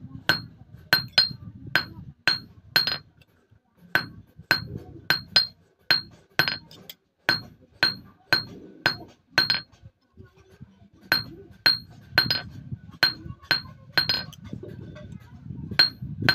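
Small hand hammer tapping a thin steel sickle blank against a steel anvil block, two to three light strikes a second, each with a short metallic ring, with brief pauses twice. The blade is being cold-forged, shaped without heating.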